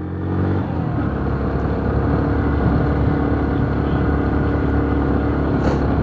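Yamaha YBR125G motorcycle's single-cylinder engine running under way. Its note changes and gets louder about a second in, then holds steady.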